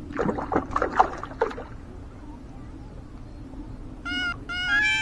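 A hooked herabuna (Japanese crucian carp) splashing and thrashing at the water's surface in a quick run of splashes during the first second and a half. About four seconds in, a high, steady-pitched call starts and steps up in pitch.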